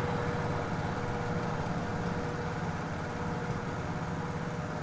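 Wood chipper's engine running steadily, an even mechanical hum with no chipping knocks.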